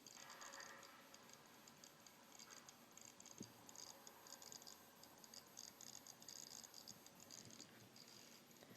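WD Passport 1TB portable hard drive making a faint, irregular static-like ticking and crackling that keeps repeating. The drive is not readable, and Western Digital suggested the USB cord may be the cause.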